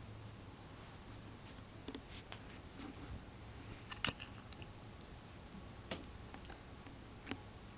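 Quiet room with a few faint soft clicks and scuffles from two cats wrestling silently, the sharpest click about four seconds in. There are no meows or hisses.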